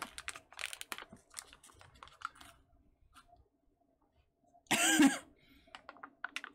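Crinkling and crackling of a plastic MRE pouch being handled and torn open, a quick run of small crackles that dies down, then one short loud cough about five seconds in, followed by a few more crinkles.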